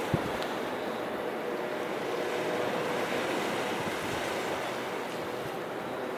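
Sea waves washing steadily onto the shore, with a single sharp knock shortly after the start.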